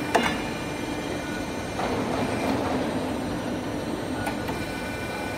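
Detsch W28K-89 pipe bending machine running through a bend: a steady mechanical hum, with a sharp clank just after the start and a smaller click about four seconds in.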